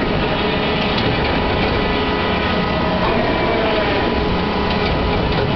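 Mechanical pirate ship running through its operating cycle: a steady mechanical drone with a faint hum.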